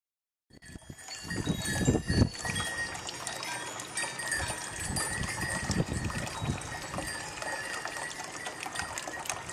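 Desert wind gusting and buffeting the microphone in uneven surges, starting about half a second in, with metal chimes ringing high and steadily over it.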